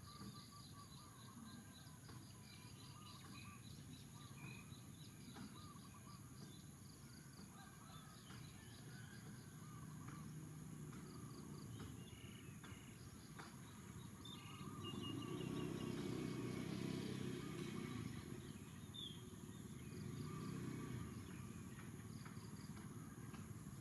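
Faint outdoor ambience: small birds chirping and a steady high insect drone. A low rumble swells for a few seconds past the middle and again briefly near the end.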